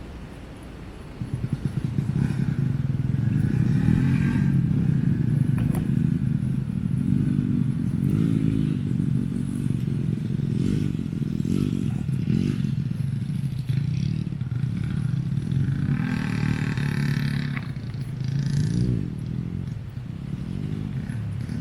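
A motor vehicle's engine comes in about a second in and runs, its pitch rising and falling repeatedly as it revs.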